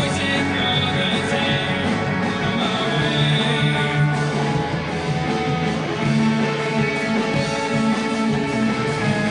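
Band music with strummed guitars playing an instrumental stretch of a song, without vocals.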